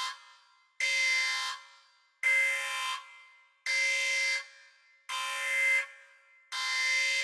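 A buzzer-like electronic tone sounding in repeated blasts, one about every second and a half. Each blast starts sharply, lasts under a second and fades away.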